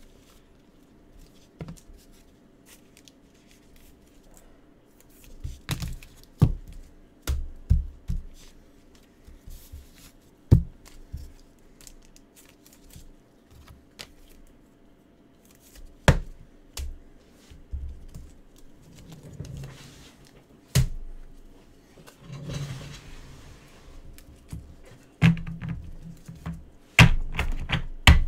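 Hands handling trading cards and plastic card holders on a table: scattered clicks and knocks, some with a dull thump, and a couple of brief rustles.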